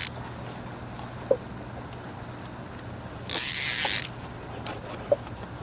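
Big-game fishing reel's drag buzzing briefly, a little past the middle, as a large sturgeon strips line against the bent rod. A steady low hum runs underneath, with a few soft knocks.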